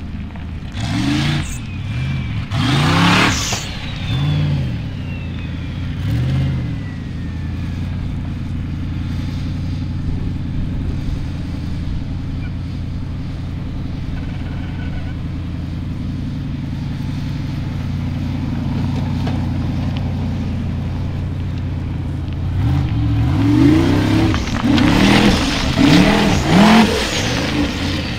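Formula Offroad competition car engine idling with short throttle blips: a few quick revs early, a steady idle through the middle, then a series of rapid revs near the end.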